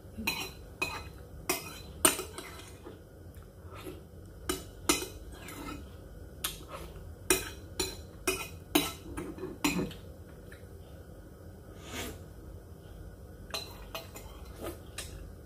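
Metal spoon clinking and scraping against a ceramic soup bowl while eating, in irregular sharp clinks. The clinks come thick and fast for the first ten seconds, thin out, then pick up again briefly near the end.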